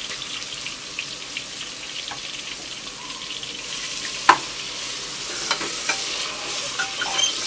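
Sliced onions sizzling steadily as they fry in hot vegetable oil in a pressure cooker, stirred with a metal slotted spoon. Light clicks run through the frying, and a sharp knock comes about four seconds in.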